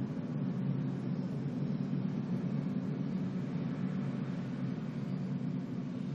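Laptop cooling fan running steadily during boot: an even, low whirring hum with no change in pitch.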